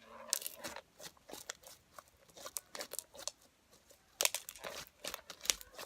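Thick slime mixed with beads being squeezed and kneaded by hand, giving irregular crackles and pops, with a denser cluster of them about four seconds in.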